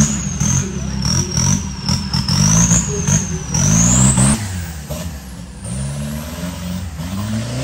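Off-road 4x4 competition truck's engine revving up and down repeatedly under load, with a thin high whine that climbs in pitch and cuts off about four seconds in.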